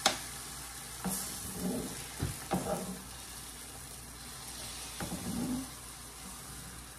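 Beaten eggs sizzling on a hot griddle as they are poured out of a bowl, a steady hiss broken by a few short knocks and scrapes of a spatula working the bowl and the griddle.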